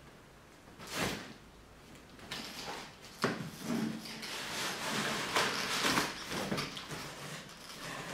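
Rustling of a black fabric drawstring dust bag as a new leather handbag is pulled out of it. A brief rustle comes about a second in, then continuous rustling and handling from about two seconds in.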